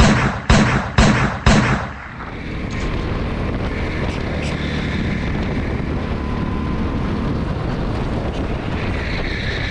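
Four loud booming hits about half a second apart for an intro sting. About two seconds in, they give way to the onboard sound of a go-kart engine running steadily at speed, with wind rush.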